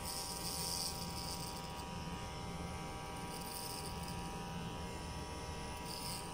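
Electric hair clipper with a comb guard attachment buzzing steadily as it is run up through the hair at the side of the head, with a few brief hissing swells.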